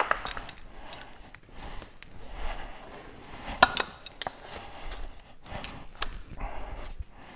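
Steel sockets and hand tools clinking and clicking as they are picked up and a socket is fitted onto a cordless impact wrench, with a few sharp metallic clicks, the loudest about three and a half seconds in.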